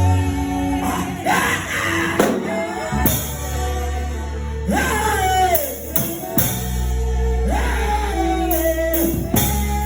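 Gospel worship music with singing: a pitched lead line swoops up sharply and slides back down three times over long, sustained deep bass notes.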